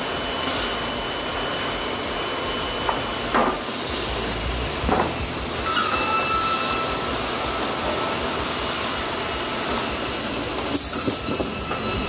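Industrial sawmill machinery running: the log carriage and headsaw with powered roller conveyors make a steady, loud mechanical noise, with a faint high whine. A few short squealing glides come about three seconds in, again about five seconds in, and near the end.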